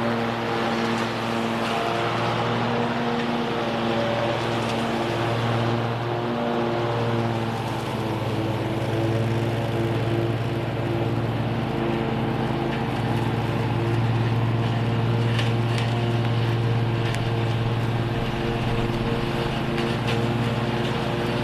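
Toro TimeCutter zero-turn mower with a bagger attached, engine running at one steady speed with the blades engaged as it sucks up leaves off the lawn.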